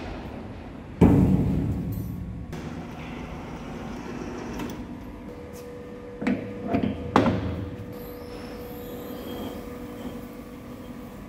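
A heavy metal clunk about a second in, ringing out and fading, as a large lathe steady rest is moved on the lathe bed. Then, just past the middle, three sharp metallic knocks as a four-jaw chuck is handled.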